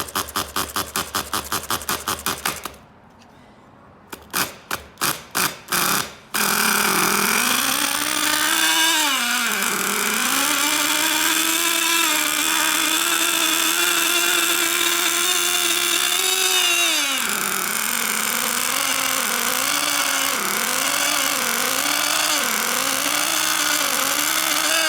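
A small nitro (glow-fuel) RC engine is cranked over in rapid pulses, about eight a second, then again in a few more pulses after a short pause. It catches about six seconds in and runs at a high pitch, holding steady speed for several seconds. After a drop in revs it rises and falls about once a second.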